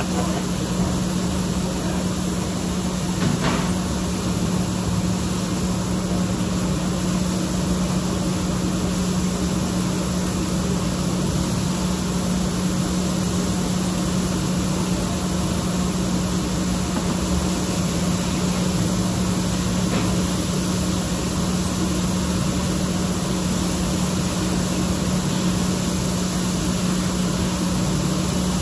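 A steady machine hum with a constant low tone, unchanging throughout, and a faint click about three seconds in.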